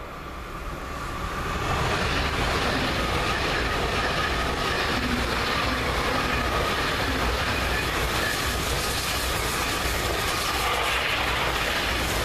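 ICE high-speed train passing close by. The noise builds over about the first two seconds, then stays steady and loud as the carriages go past.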